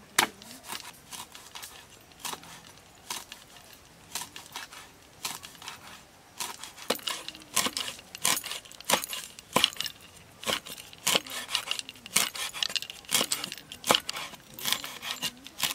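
Cleaver chopping green herbs on a round wooden chopping block, a string of sharp knocks that come sparsely at first and then faster, about two a second, in the second half.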